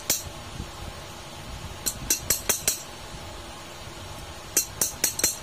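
Short runs of sharp metallic clicks, four or five in quick succession about two seconds in and again near the end: a steel wrench and parts clinking against the fan motor's rotor shaft and nut.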